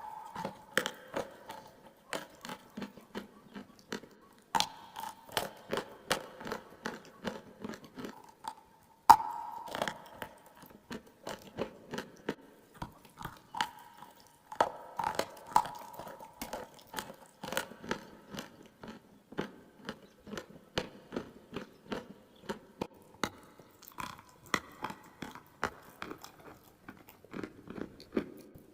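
A person biting and chewing clay close to the microphone: crisp crunches and wet mouth sounds about two to three a second, with sharp, louder bites about four and a half and nine seconds in.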